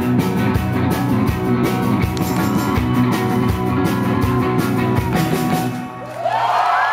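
Live rock band with electric guitars, bass and drums playing the last bars of a song. The music stops about six seconds in and the crowd starts cheering and whooping near the end.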